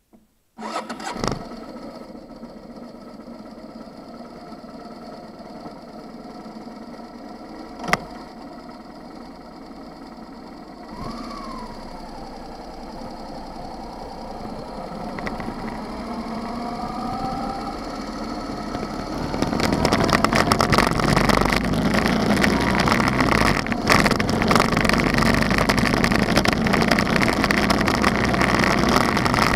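Motorcycle engine running at idle, with a sharp click about eight seconds in. About two-thirds of the way in the bike pulls away and accelerates, and the engine and wind noise grow much louder.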